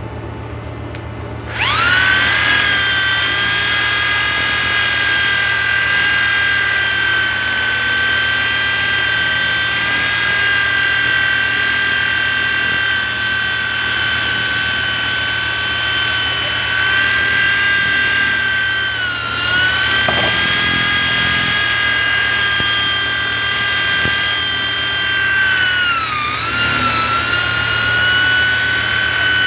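A handheld power tool spins up about a second and a half in and runs with a steady high whine. Its pitch sags briefly twice, near the two-thirds mark and again near the end, as it is pressed into the work. A steady low hum runs underneath.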